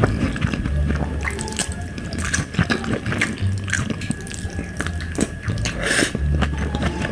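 Wet eating sounds of dal and rice: irregular squelching, smacking and chewing clicks.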